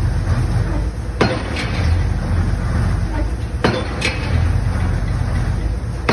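Crane-hung pile-driving hammer striking the top of a concrete pile, three heavy blows about two and a half seconds apart, each followed by a fainter second knock. The rig's engine runs steadily underneath.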